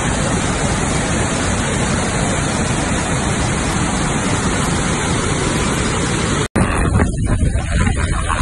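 Steady roar of a large waterfall, a dense even rush of falling water. It cuts off abruptly about six and a half seconds in, and a helicopter running close by takes over near the end, with wind buffeting the microphone.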